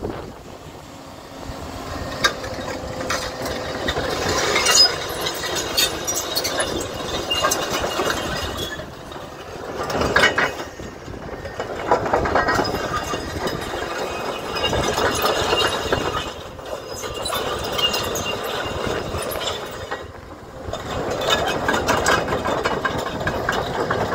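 Komatsu PC210LC-11 tracked excavator running, its six-cylinder diesel rising and falling every few seconds as the machine is worked. Metallic clanks and creaks come from the machine throughout.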